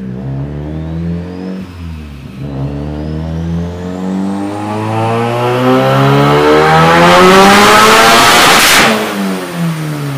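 Turbocharged Mitsubishi 4G15 MIVEC 1.5-litre four-cylinder on a full-throttle pull through a 3-inch downpipe. The revs climb steadily for about six seconds, with a high turbo whine rising along with them, and it is loudest near the top. About nine seconds in the throttle lifts and the revs fall away.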